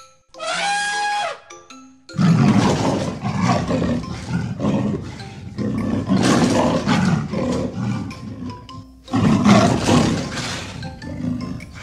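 An elephant trumpets once, then a leopard growls in three long, rough bouts. Light tinkling background music plays under both.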